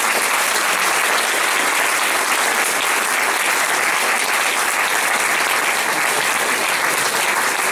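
Audience and panel applauding steadily.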